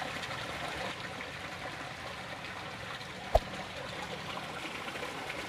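Water in a shallow stream trickling steadily, with one sharp click a little over three seconds in.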